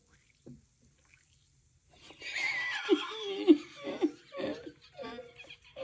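Giggling laughter in short repeated bursts, starting about two seconds in over a steady hiss.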